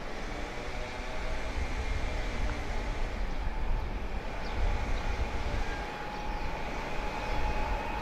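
Taiwan Railways Tzu-Chiang E1000 electric push-pull express train approaching: a distant rumble that slowly grows, with a steady whine rising in the last couple of seconds.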